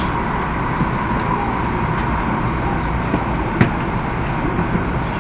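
Cabin noise of a Taiwan High Speed Rail 700T train running through a tunnel: a steady rumble and rush of wheels and air, with a couple of short sharp clicks about two and three and a half seconds in.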